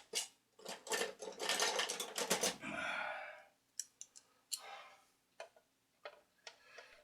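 Small channel-lock pliers clicking and scraping on a stuck metal part of a record player mechanism as it is worked loose. A quick run of clicks comes first, then a brief rasp about three seconds in, then a few scattered clicks.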